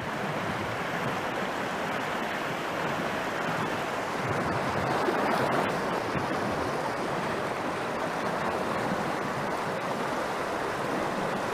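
Creek water rushing steadily over rocks in a riffle, swelling slightly for a couple of seconds near the middle.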